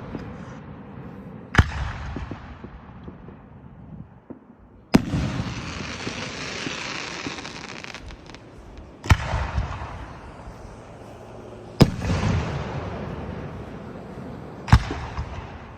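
Large aerial firework shells bursting overhead: five loud bangs a few seconds apart, each followed by a rolling, fading tail of echo and crackle.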